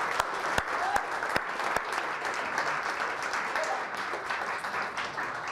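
Audience applauding, a steady patter of many hands clapping that eases off near the end.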